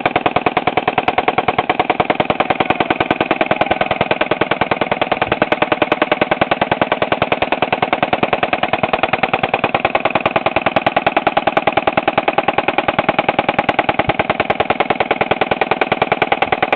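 M240 7.62 mm belt-fed machine gun firing one long unbroken burst, a fast steady stream of shots with no pause.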